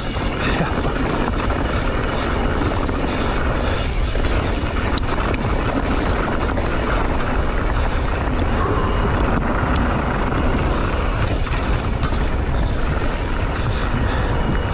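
Steady wind rumble on an action camera's microphone while riding a mountain bike down a dirt and gravel trail, with the tyres crunching over the surface and small clicks and rattles from the bike.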